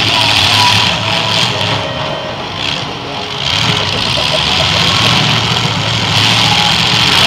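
Demolition derby car engines running loudly in a mud pit, one car driving through the mud and throwing up spray.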